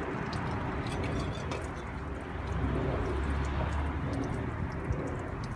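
Water spraying from a garden hose nozzle and splashing onto plants and pavement, a steady noise throughout.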